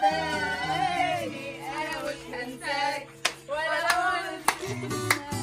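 A group of people singing together over music with held notes, with a few sharp hand claps in the second half.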